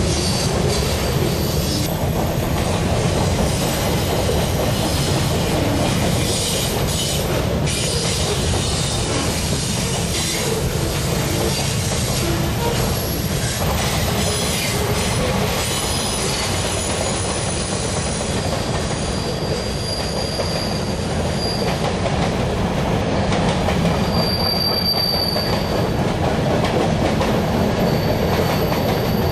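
Norfolk Southern freight train rolling past on a curve: a steady rumble and clatter of wheels on rail, with a high, thin wheel-flange squeal coming in several times in the second half.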